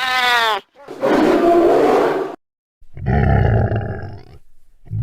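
Animal-like roars and growls, several in a row with short pauses between; the first is shorter, higher and falling in pitch.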